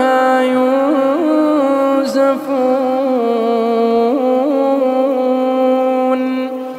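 A man's voice reciting the Quran in Arabic in the melodic tajweed style, stretching the words 'wa la hum 'anha yunzafun' into one long held note with small ornamental turns.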